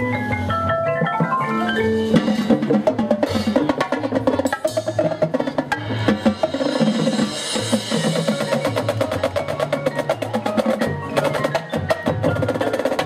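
Marching band percussion section playing. Mallet keyboards run quickly through a series of notes at first, then the drums take over with fast, dense rhythmic strokes.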